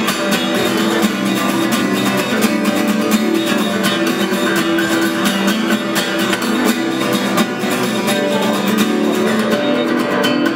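Acoustic guitar strummed fast and steadily in an instrumental passage of a song, played live without singing.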